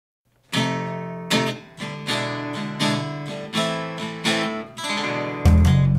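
Background music: an acoustic guitar strummed in a steady rhythm, starting suddenly about half a second in after silence. Near the end the music turns fuller and heavier in the low end.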